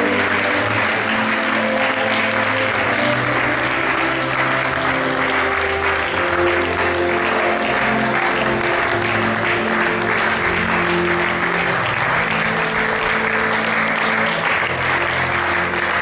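Audience applauding steadily over music with long held notes.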